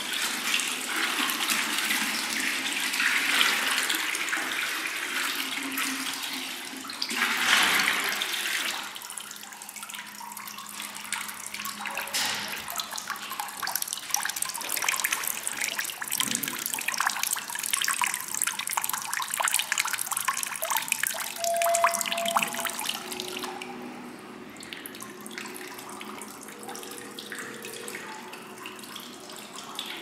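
Water pouring from a plastic jug into a stone fountain's basin, a louder splash for about the first eight seconds. Then the fountain's two spouts trickle and splash steadily into the basin.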